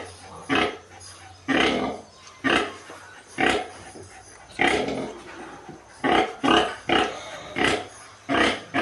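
Pigs grunting over and over, short calls coming about once a second, with a few longer ones.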